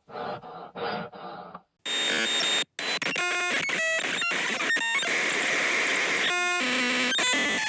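A few short growl-like bursts, then about two seconds in a sudden loud wall of harsh static that keeps on, broken by glitching beeps and buzzing tones.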